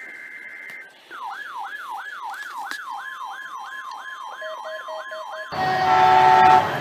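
Electronic yelp siren, its pitch sweeping up and down about two and a half times a second, with a steady tone joining partway through. Near the end a louder, harsher sound with several held pitches cuts in for about a second.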